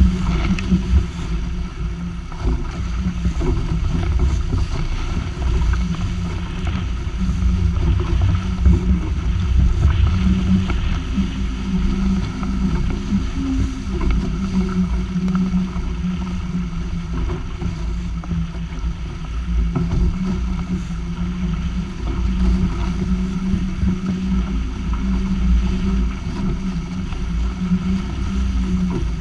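Wind buffeting the microphone over a continuous rush of water hissing and splashing past the hulls of a Weta trimaran sailing fast. The low rumble rises and falls with the gusts and spray.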